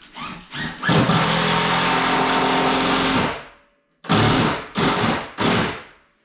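A handheld power tool run in bursts: a few quick blips, then one steady run of about two seconds, then three short runs near the end.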